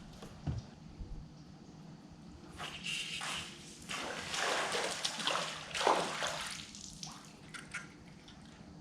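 Water splashing and sloshing in a few swells, the loudest about six seconds in, after a few light clicks near the start.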